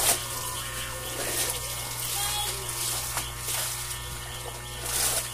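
Steady low electric buzz, with a brief rushing noise at the start and another near the end.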